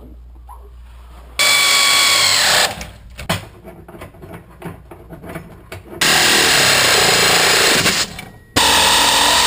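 Power drill driving bolts through a socket on a long extension, tightening the fuel tank's mounting straps. It runs three times in short bursts, the pitch falling each time as the motor winds down on release.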